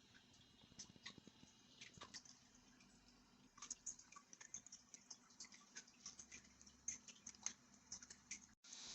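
Faint, irregular light clicks and taps of a small plastic device and its packaging being handled.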